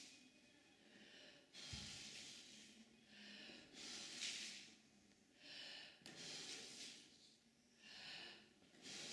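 Faint, heavy human breathing: a run of hissy in-and-out breaths about every second, with a soft thump on the floor about two seconds in.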